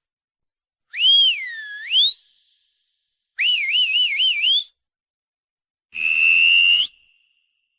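Whistling, three separate short whistles with silent gaps between them. The first swoops down and back up, the second warbles up and down, and the third holds a steady pitch and lifts slightly at the end.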